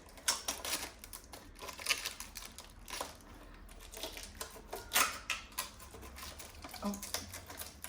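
Irregular clicks, knocks and rustles of packaging being handled as an electric unicycle is pulled out of its shipping box, with the sharpest knock about five seconds in.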